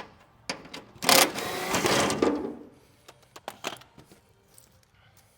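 Cordless drill-driver running for about a second and a half, backing out a screw that holds the car's front bumper and shield, with a few short clicks before and after.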